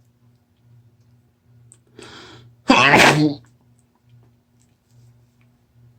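A person with a head cold sneezing once, wet and loud, about halfway through, after a sharp intake of breath: part of a sneezing fit brought on with Chhinkni sneezing powder.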